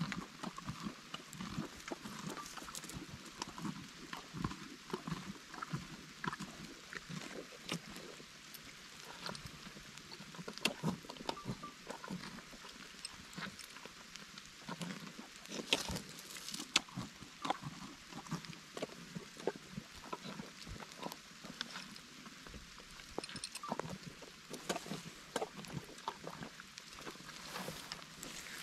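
Donkeys biting and chewing watermelon close by, a steady run of irregular wet crunches and snaps as the rind breaks.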